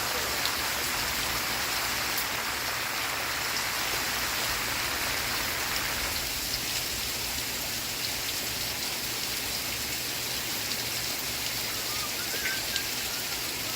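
Steady rain falling as an even, continuous hiss, easing slightly about six seconds in.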